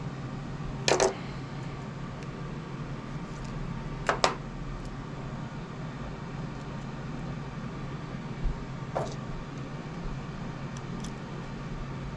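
Small parts and tools being handled during servo mounting: a few sharp clicks and knocks, a pair about a second in, another pair about four seconds in and a single one about nine seconds in, over a steady low hum.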